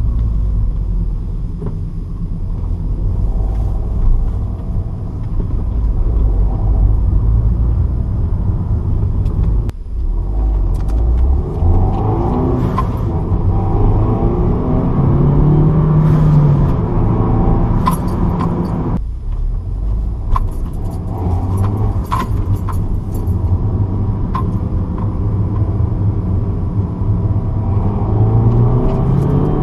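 Turbocharged 1.6-litre four-cylinder engine of a Mini Cooper S R56 with a K&N Typhoon cold air intake, running while driving and heard from inside the cabin. The sound dips sharply twice, about ten and nineteen seconds in, as at gear changes. A few short clicks come through in the middle.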